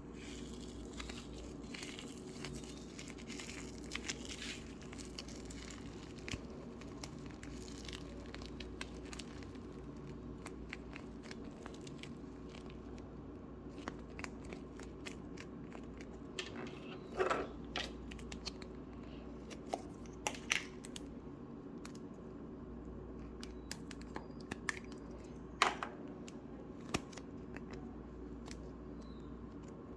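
Feathery Play-Doh slime being stretched and squeezed by hand, giving scattered sticky crackles and small pops, with a few sharper pops about halfway through and near the end, over a faint steady hum.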